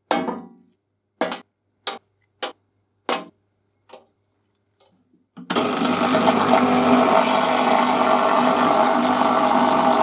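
Small metal oiler parts set down one by one on the steel tray of a parts washer: about six separate clanks. About halfway through the washer's pump switches on and runs steadily, and near the end a brush scrubs the oiler's metal body.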